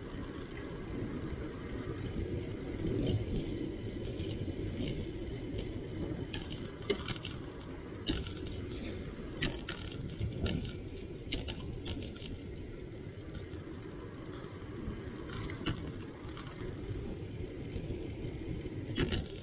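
Bicycle rolling along cracked asphalt: a steady low rumble of tyres and wind, broken by scattered sharp clicks.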